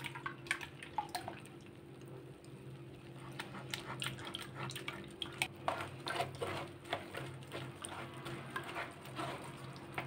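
A wooden spoon stirring and pressing wet pomegranate pulp in a fine metal mesh sieve, with the juice dripping into a glass bowl below: quiet, irregular wet clicks and scrapes.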